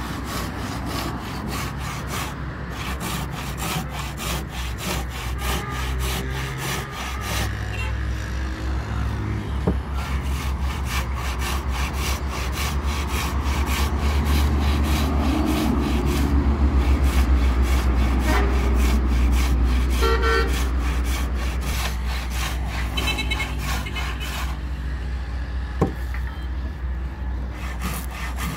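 Hand saw cutting down through a softwood board in a steady rhythm of push-and-pull strokes. Road traffic rumbles underneath, swelling as a vehicle passes in the middle, and a vehicle horn honks in short pulses about two-thirds of the way through.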